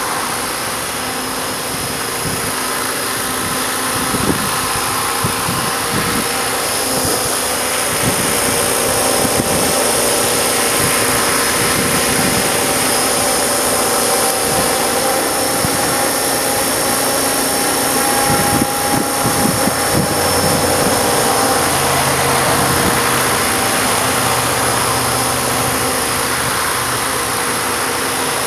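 Electric Ikarus Eco 8 RC helicopter flying: a steady motor-and-gear whine with rotor noise, its pitch drifting slightly as the pilot holds it in place. Strong gusty wind buffets the microphone with low rumbling.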